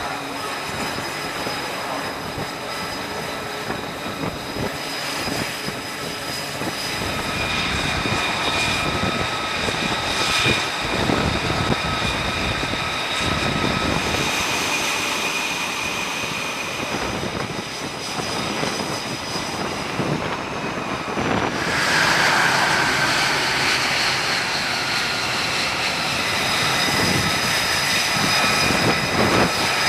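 Aircraft engines running with a steady noise and several high whining tones; about two-thirds of the way through it gets louder, with a whine that falls in pitch.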